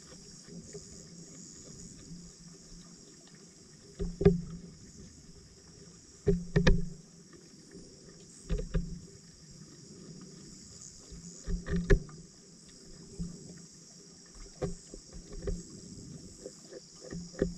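Muffled water sloshes and knocks heard through an underwater camera housing, coming in short irregular bursts about every two seconds over a faint steady hiss.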